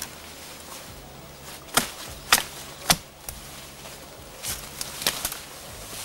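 Hatchet chopping at a thin sapling stem: three sharp blows about half a second apart, then a few lighter knocks near the end.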